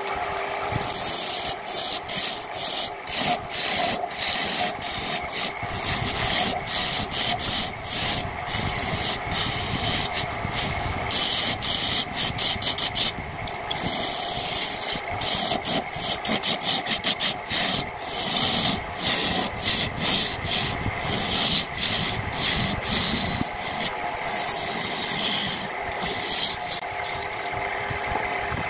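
Wood lathe running with a steady hum while a hand-held turning tool cuts into the spinning wood, a rough scraping hiss that breaks off and resumes many times as the tool bites in and lifts away.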